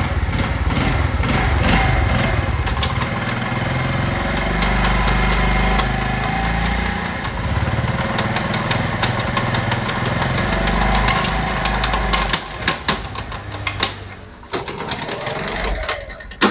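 CD70-type 70cc single-cylinder motorcycle engine running with a harsh knocking rattle from the gearbox, a 'kat kat kat' sound caused by two broken teeth on a transmission gear. The engine dies away about twelve to fourteen seconds in, leaving scattered clicks.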